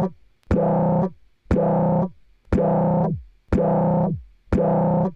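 Software synthesizer in Logic Pro repeating the same buzzy note about once a second, each note starting with a sharp click, holding for about half a second, then dying away.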